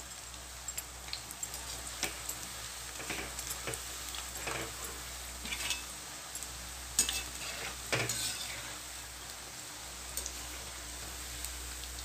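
Onion fritters deep-frying in hot oil in a metal kadai: a steady sizzle, with a metal spoon scraping and clinking against the pan now and then as the fritters are stirred.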